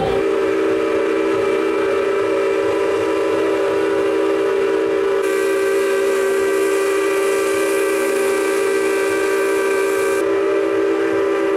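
Steam whistle of the paddle steamer Krippen blowing one long, steady blast, several tones sounding together as a chord, with extra steam hiss in the middle few seconds.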